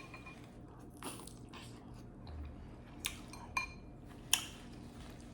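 Close-miked eating sounds: soft chewing, broken by a few short sharp clicks about one, three, three and a half and four and a half seconds in.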